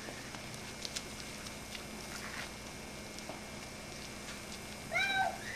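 A single short, high-pitched cry about five seconds in, rising and then falling in pitch, over a steady faint hiss with a few light clicks.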